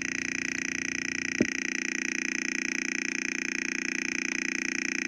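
Loudspeaker with water on its cone playing a steady electronic buzz, a square-wave tone fed from a frequency generator through a transistor circuit. About a second and a half in there is a single short thump.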